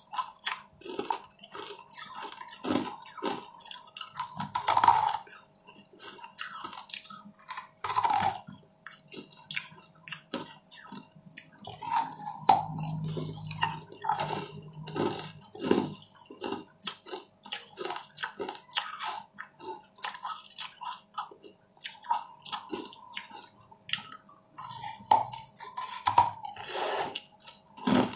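Close-miked eating sounds: a person biting and chewing a soft, wet, seed-studded food, with irregular wet smacks, squishes and clicks of the mouth.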